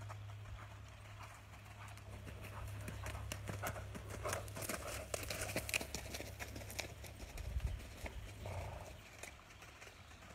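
Hoofbeats of an American Paint Horse mare moving at a brisk gait over soft arena dirt, growing louder through the middle as she passes close by and fading toward the end. A steady low hum runs underneath.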